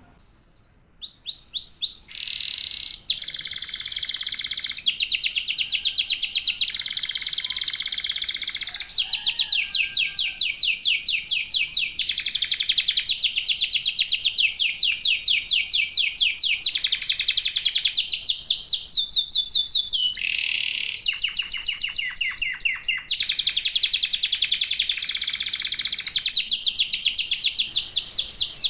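Domestic canary song: long runs of rapid trills, each held for a second or two before switching to a new trill, after about a second of near silence at the start.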